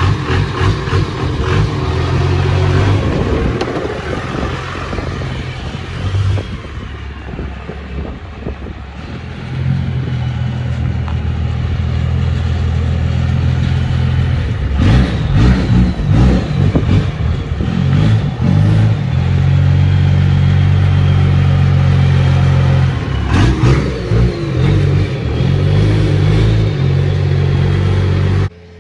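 Dodge Ram dually's Cummins turbo diesel revving hard in repeated pulls, some held at high revs for several seconds, its exhaust blowing through a trash can clamped over the tailpipe. Clattering bursts come in around the middle and again near the end.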